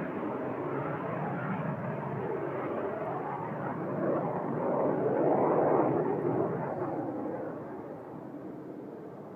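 Jet aircraft passing overhead: a rushing noise that swells to its loudest a little past the middle, then fades away.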